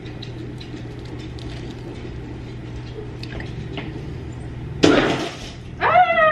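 A dog's bowl kicked over, a sudden loud clatter and splash about five seconds in as its contents spill across the floor, followed by a high startled cry whose pitch falls away. Before that, only faint rustling of a plastic crock pot liner.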